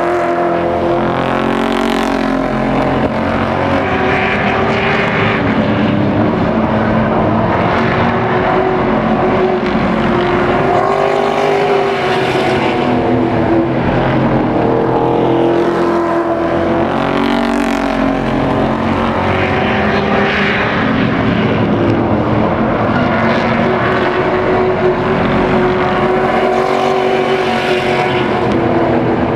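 A pack of race trucks running laps on a short asphalt oval, their engines at racing speed. The sound swells as trucks pass close and fades as they go round, with engine pitch rising and falling through the turns, several times over.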